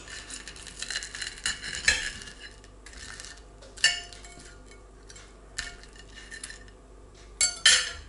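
Knife and fork clinking and scraping on a plate as a breaded fish burger is cut open, with a few sharper clinks, the loudest near the end.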